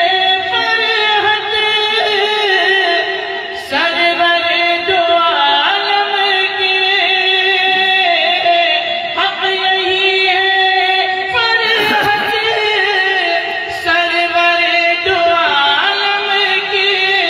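A man singing Urdu religious verse (a naat) into a microphone, unaccompanied, in long held notes ornamented with melismatic turns, phrase after phrase.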